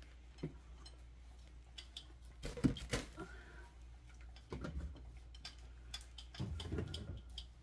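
Scattered clicks and knocks of plastic bottles and containers being handled and moved on refrigerator door shelves, with a few duller thumps.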